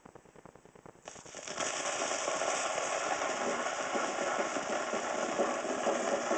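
Shellac 78 rpm record on a turntable: faint ticking, then about a second in the stylus drops into the lead-in groove and a loud, steady surface hiss with crackle sets in before the music starts.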